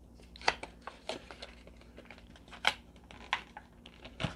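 Irregular light clicks and taps, about five in all, of a portable hard drive and its plastic case being handled.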